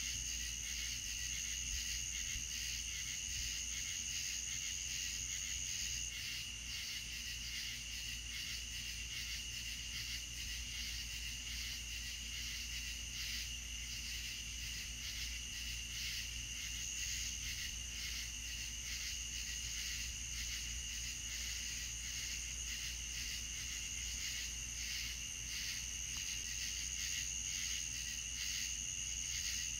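Night insect chorus: crickets trilling steadily at two pitches, over a low steady hum. The higher trill weakens about six seconds in and comes back strongly over the last few seconds.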